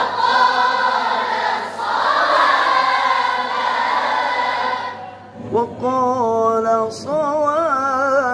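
A group of students chant Quranic recitation together in unison, their many voices blended. About five seconds in, the group stops and a single voice carries on alone, with a wavering melodic ornament in the nahawand mode.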